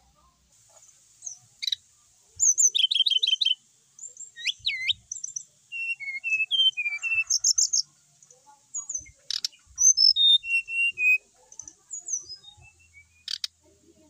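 Caged brown-chested jungle flycatcher singing: several quick phrases of varied chirps, swooping whistles and rapid repeated notes, separated by short pauses. Two sharp clicks come partway through and near the end.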